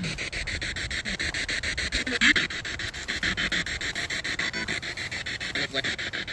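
Spirit box sweeping through radio stations: continuous hissing static chopped by rapid, evenly spaced clicks. A dog barks over it, loudest about two seconds in.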